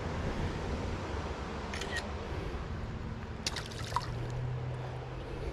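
Sharp clicking and handling noises, one cluster about two seconds in and another about three and a half seconds in, over a steady low rumble of outdoor background.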